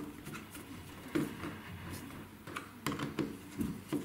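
Insulated screwdriver tightening the clamp screws on a dishwasher's electrical terminal block: irregular small clicks and taps of the metal tip in the screw heads and the terminal block, several a second, the sharpest about a second in and around three seconds in.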